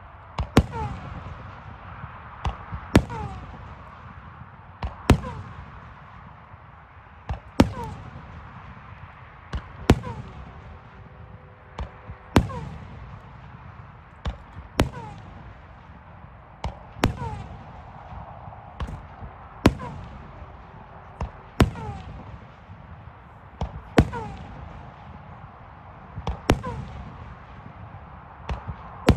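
Consumer fireworks going off: sharp bangs, often two in quick succession, repeating about every two to two and a half seconds over a steady low rumble and hiss.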